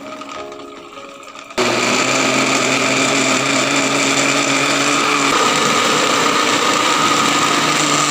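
Electric blender switched on about a second and a half in, its motor running at a steady high speed while blending juice.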